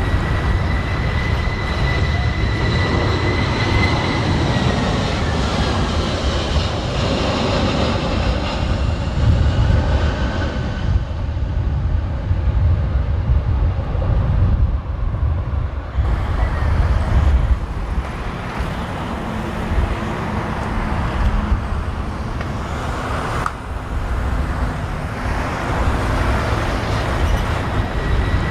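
Strong gusty wind buffeting the microphone, over the whine of a landing jet airliner's engines, which falls in pitch about five to ten seconds in as the aircraft passes; the whine comes back near the end.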